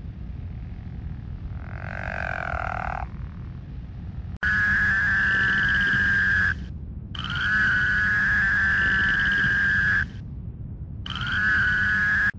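Male frog or toad mating calls: a short call about two seconds in, then three long, even, high trills of about two seconds each, with short pauses between them.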